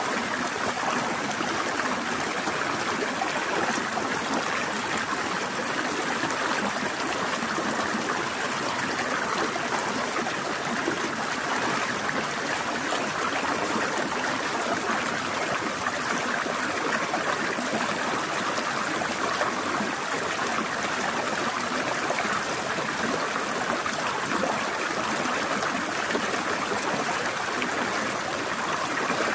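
Forest stream flowing and trickling over rocks, a steady even rush of water.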